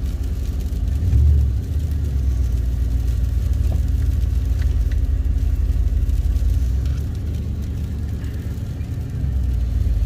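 Steady low engine and road rumble heard from inside a pickup truck's cab while driving, briefly louder about a second in.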